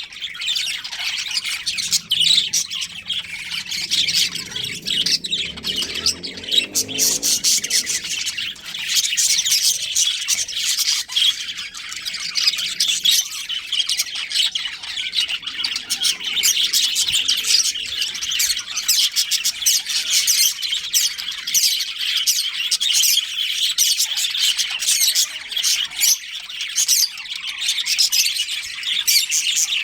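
A colony of budgerigars chirping and chattering together, a dense, unbroken stream of quick high chirps and squawks from many birds at once.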